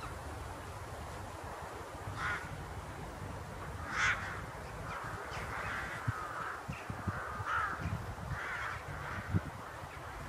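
A flock of crows cawing in flight, with short caws at first and one loud caw about four seconds in, then many overlapping caws in the second half.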